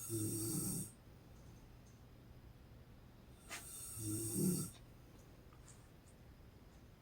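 A woman snoring in her sleep: two loud snores, one right at the start and one about four seconds in, with quiet breathing between them.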